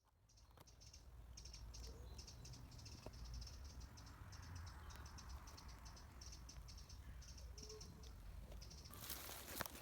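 Quiet outdoor ambience of insects chirping in short, rapid high-pitched runs over a low rumble. About nine seconds in, a louder crinkling, rustling noise starts.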